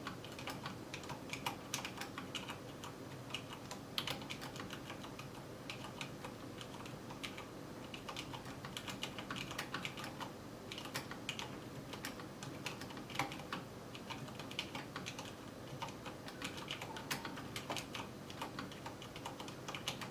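Typing on a mechanical keyboard with Cherry MX Brown switches: a fast, irregular run of keystroke clicks and keycap clacks with no pauses.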